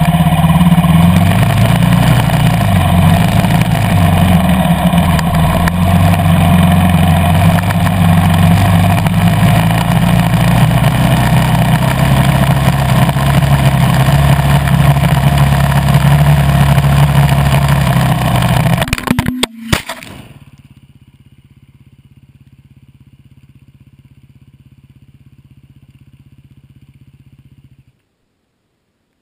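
2013 KTM 350 EXC-F's single-cylinder four-stroke engine running under throttle while riding, revs rising and falling. About two-thirds through, a brief clatter of knocks cuts the engine sound away, leaving only a faint steady hum until the sound stops.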